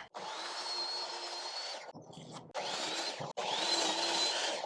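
A power tool working wood, running with a high whine that shifts in pitch. It stops briefly about two seconds in, then runs again.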